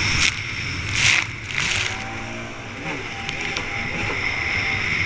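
Racing stand-up jet ski running at speed over choppy water, its engine and the rush of water and spray picked up by a camera mounted on the hull. The loud rush drops back about two seconds in, leaving a quieter engine note that wavers in pitch.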